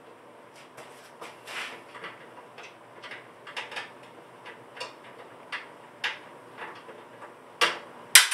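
Irregular small clicks and knocks as hex bolts are fitted by hand through the dust collector's steel motor/impeller housing and gasket into the post's mounting bracket. Two sharper, louder knocks come near the end.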